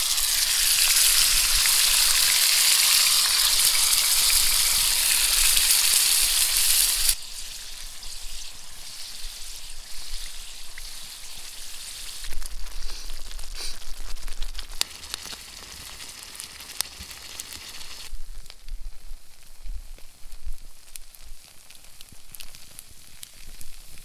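Sausage and tomato sauce sizzling loudly in an oiled pan over a campfire. About seven seconds in the hiss cuts off abruptly to a much quieter crackling with scattered pops.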